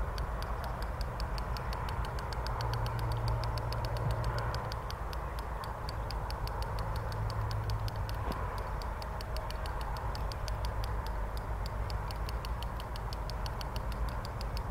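Fishing reel ticking in a rapid, even run of clicks while a hooked carp is being played.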